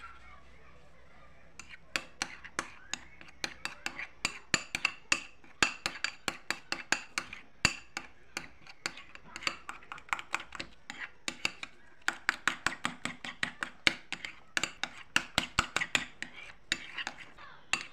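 Metal spoon clinking and scraping against a ceramic bowl while stirring a thick mashed-banana paste: a rapid, irregular run of clinks, several a second, starting about a second and a half in.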